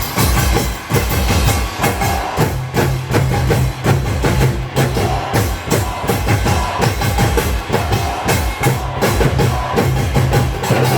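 Loud up-tempo music with rapid, dense drum strikes over a steady bass line: nanta-style drumming played along with a backing track.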